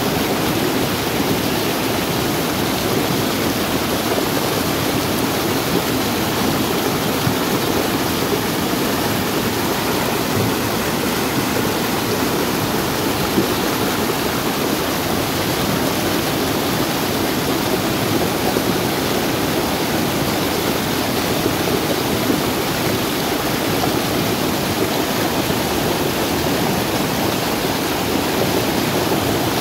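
Muddy rainwater runoff rushing and cascading down a rocky gully, a steady, loud rush of water.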